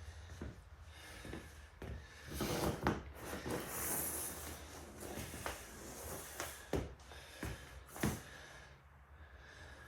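Person breathing hard after a set of burpees, with a few scattered knocks and rustles of movement.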